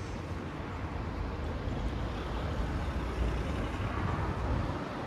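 Street traffic going by, a steady rumble of motor vehicles that grows a little louder about three to four seconds in.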